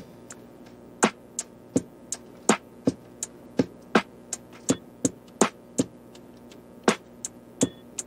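Background music: crisp clicking percussion hits about three a second over soft sustained tones, pausing briefly about six seconds in.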